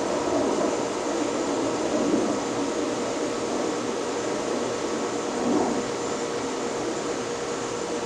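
Southern Fan Co. Tara ceiling fan running, a steady rush of moving air with a faint steady hum and gentle swells.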